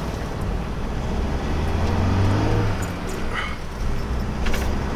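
Swift Select 122 motorhome's engine and road noise heard from inside the cab while driving, a steady low hum that grows louder about two seconds in and eases back about a second later, with a few light rattles.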